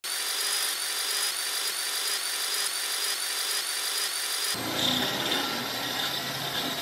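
Power-tool sound effect: a harsh mechanical whir that pulses about twice a second, changing abruptly to a lower, rougher sound about four and a half seconds in.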